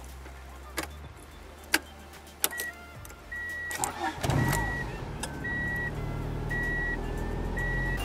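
Ignition key clicks, then a 1991 Honda Accord's four-cylinder engine cranks and starts about four seconds in and settles into a steady idle, the clutch safety switch bypassed. A dash warning chime beeps about once a second throughout the start.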